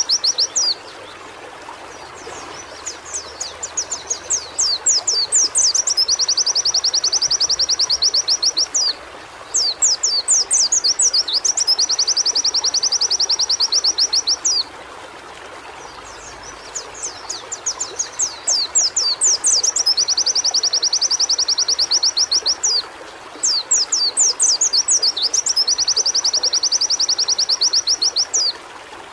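White-eye (pleci) singing in repeated phrases several seconds long. Each phrase begins with quick sweeping chirps and runs into a fast, high trill, with short pauses between phrases and a steady hiss behind.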